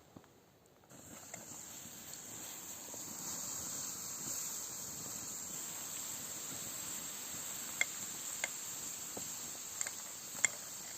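Campfire embers being put out, hissing steadily. The hiss starts about a second in and grows louder over the next few seconds, with a few sharp pops near the end.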